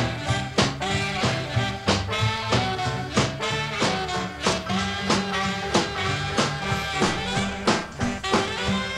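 Rockabilly record playing an instrumental stretch without vocals: a steady drum beat over a stepping bass line.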